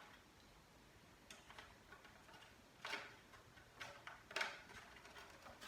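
A few faint, scattered clicks and rustles of a charging cable being worked into the plastic cutouts on the base of a cordless vacuum's charging stand.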